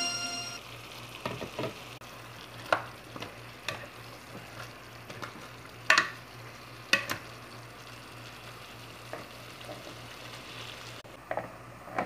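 Vegetables cooking in tomato sauce in a pot: a faint sizzle with about ten sharp clicks and knocks at irregular intervals, over a steady low hum.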